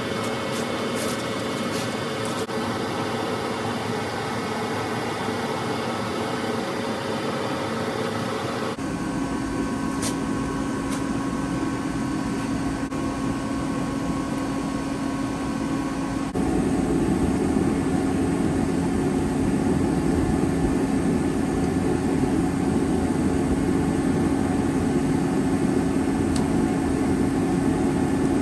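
Power sander running steadily on car body filler. The sound changes abruptly about nine seconds in and again about sixteen seconds in, getting louder and heavier with a steady hum.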